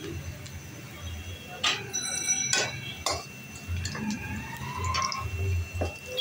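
Grated bottle gourd bubbling in oil in a karai, with a metal spatula clicking and scraping against the pan as it is stirred; several sharp clicks in the first half.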